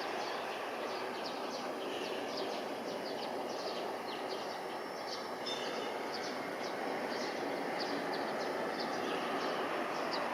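Steady distant roar of the Boeing KC-767's jet engines on its landing approach, with small birds chirping over it.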